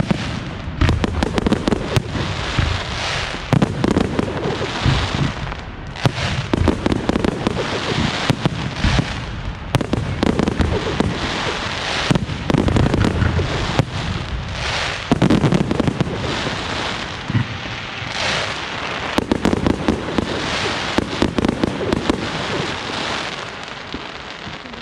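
Fireworks salute: a rapid, continuous barrage of bangs and crackling shell bursts.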